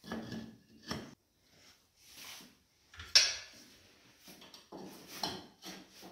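Ceramic wall tiles being set in tile adhesive: a series of short scrapes and knocks as tiles are pressed and shifted into place and a notched trowel handles the adhesive, the sharpest knock about three seconds in.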